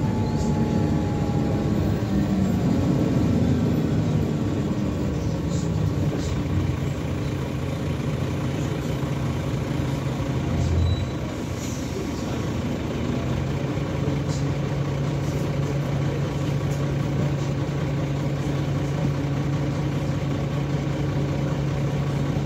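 Dennis Trident double-decker bus's diesel engine heard from inside the lower deck. The engine note shifts in the first few seconds, then settles into a steady idle from about halfway.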